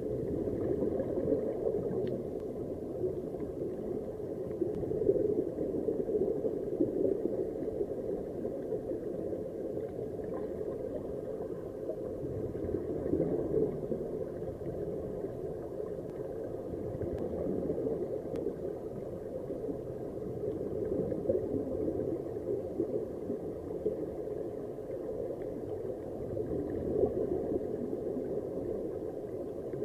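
Underwater recording: a steady, muffled bubbling rumble of air streaming out of sea-walk diving helmets and divers' breathing gear, heard through an underwater camera housing.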